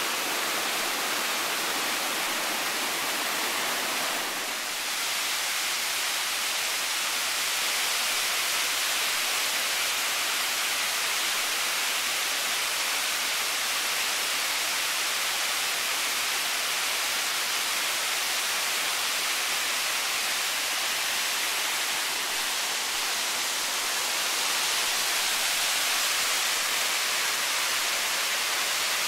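Rushing water of Shelving Rock Brook and its waterfalls: a steady, loud, even rush of falling and tumbling water, dipping slightly about four seconds in.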